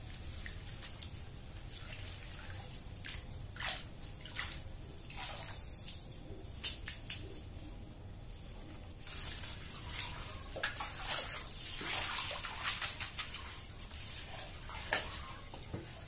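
Water sloshing, splashing and dripping as soil-caked nutsedge tubers are washed by hand in a plastic bowl of water. The splashing is sparse at first and gets busier about nine seconds in.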